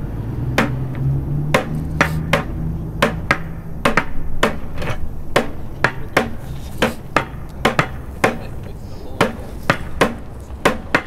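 Drumsticks striking an upturned white plastic bucket: street-style bucket drumming, sharp hits about two to three a second, unevenly spaced.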